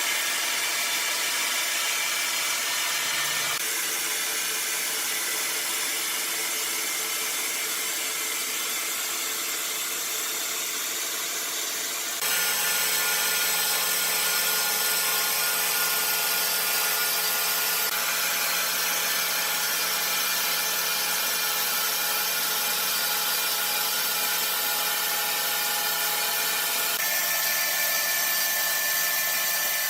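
Sawmill saw running and cutting wood, a steady machine noise with a high hiss, shifting abruptly several times.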